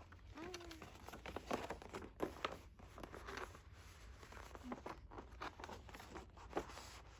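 Paper and cardboard album contents being handled: rustling, crinkling and light taps.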